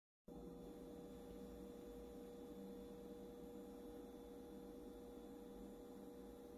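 Faint steady electrical hum of a Growatt solar inverter, one steady mid-pitched tone over low noise. It starts abruptly a moment in.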